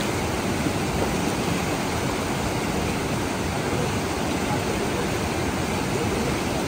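Fast white-water river rushing over boulders: a steady, even rush of water.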